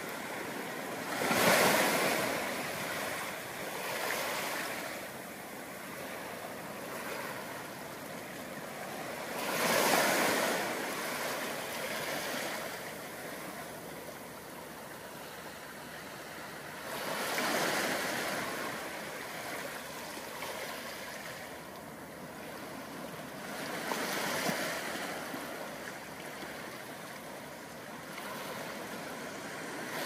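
Soft, rhythmic waves breaking and washing up on a beach, each one swelling into a rush of surf and then fading, about every seven to eight seconds. A steady low hiss of water fills the gaps between them.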